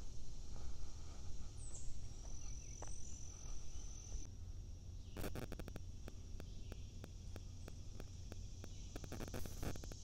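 Summer forest ambience: a steady high-pitched insect drone with a few brief chirps over a low steady rumble. About halfway through, a run of sharp clicks and ticks begins, thickest near the start of that stretch and again near the end.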